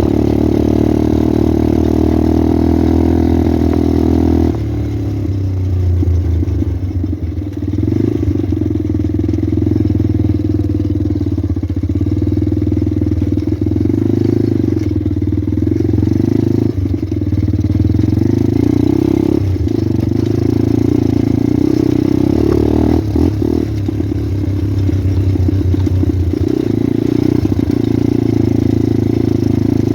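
Pit bike's single-cylinder engine running while being ridden, its pitch rising and falling a little with the throttle; about four seconds in it drops from a higher note to a lower, steadier one.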